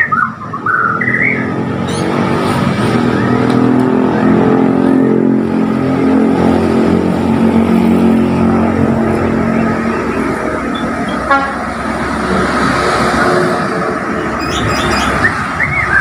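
Road vehicle engine running close by, a steady drone with a held higher tone that swells about a second in and eases off after about eleven seconds. A caged white-rumped shama (murai Borneo) whistles briefly at the start and again near the end.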